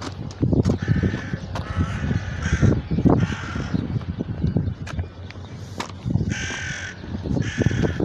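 Crows cawing: a run of four harsh caws in the first few seconds, a pause, then two more near the end, over a low crackling noise.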